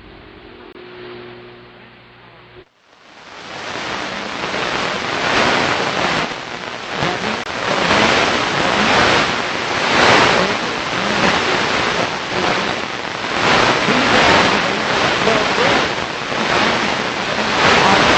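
Shortwave radio receiver on 5910 kHz at a station's sign-off: faint held music tones cut off abruptly a few seconds in, and loud hissing static takes over, swelling and fading.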